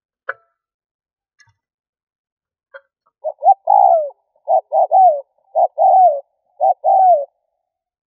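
A caged decoy spotted dove cooing its phrase of about four paired coos, each ending in a falling note, starting about three seconds in. Before it come a sharp click near the start and a fainter one a little before the cooing.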